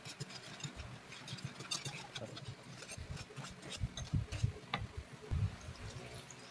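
Wire whisk scraping and clicking against a nonstick frying pan as sugar is beaten into egg yolks, in quick irregular strokes. Several dull knocks come in the middle as the whisk hits the pan.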